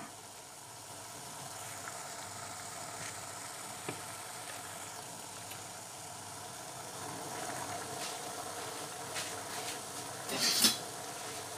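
Steady hiss of cooking on the stove, where attiéké is steaming in a stainless steel steamer basket, with a light tap about four seconds in. Near the end a metal spoon scrapes and clinks briefly against the steamer.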